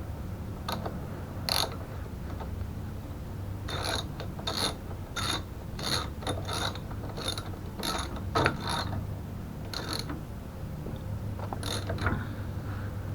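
Ratchet wrench clicking in short, irregular runs as bolts are worked, over a steady low hum.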